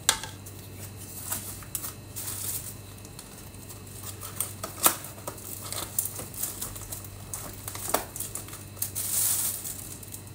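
Handling of an aluminium foil food container and plastic packaging: scattered sharp clicks and knocks, the loudest right at the start and about five seconds in, with light crinkling between. A brief rustle about nine seconds in, over a low steady hum.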